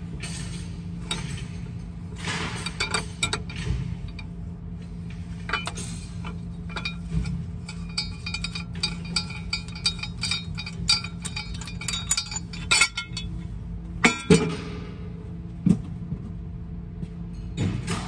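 Metal tools and engine parts clinking and tapping as the rocker arm assembly of a Mack MP8 diesel engine is worked on by hand. There is a scatter of short metallic clinks, the loudest about three-quarters of the way through, over a steady low hum.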